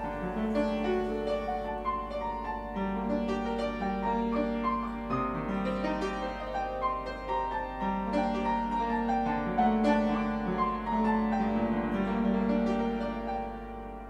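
Slow piano music with held notes, fading out near the end.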